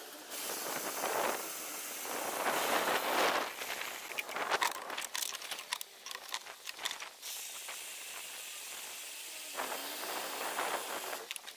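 Water running from a tap through a hose and splashing into a water container. The hiss swells and falls unevenly, with a few knocks in the middle.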